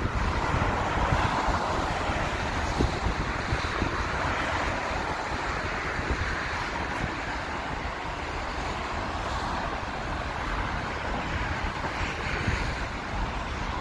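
Jet airliner engine noise, a steady rushing roar that stays at much the same level throughout, with wind buffeting the microphone.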